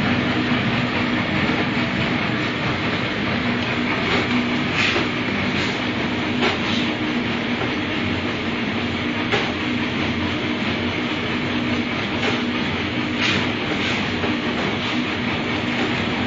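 Chikki and cake bar packaging machine running: a steady mechanical hum with a continuous rhythmic clatter, and a few sharper clicks now and then.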